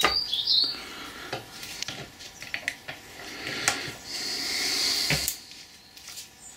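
Metal parts clinking and knocking a few times as a bearing carrier is worked onto a lathe drive shaft held in a vise, with a scraping, sliding rub for about a second near the end.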